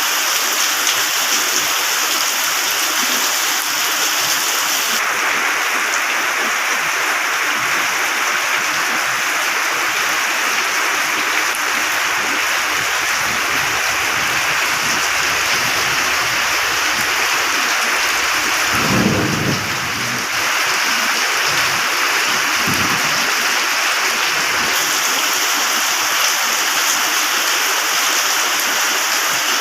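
Steady heavy rain, with a short low rumble of thunder about two-thirds of the way through and a fainter rumble a few seconds after it.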